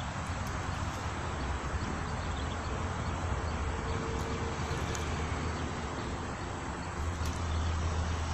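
Steady outdoor background noise with the low hum of distant road traffic, which grows louder near the end. A faint steady tone sounds briefly in the middle.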